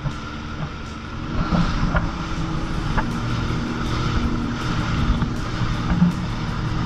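Jet ski engine running at speed on open water, with rushing wind and spray, getting louder about a second and a half in as it accelerates. A few short knocks stand out, the loudest near the end.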